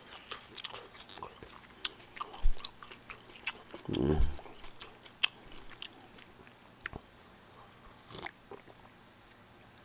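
A person eating close to the microphone: chewing and biting food, with many short, crisp mouth clicks. A brief low hum from the throat comes about four seconds in.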